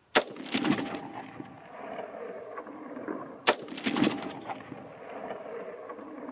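Two shots from a 20-inch .223 AR-15 rifle, about three seconds apart, each a sharp crack followed by a rolling echo.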